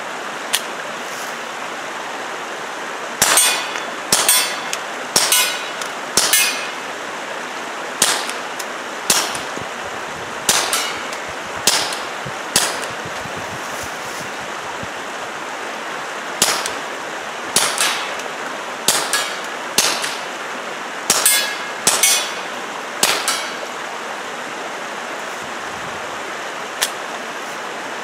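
Taurus TX22 .22 LR pistol fired through an aluminium fuel-filter suppressor with supersonic ammunition: about twenty sharp, muffled pops, each with a short ringing tail, fired in uneven strings with a few pauses of several seconds, over a steady background hiss.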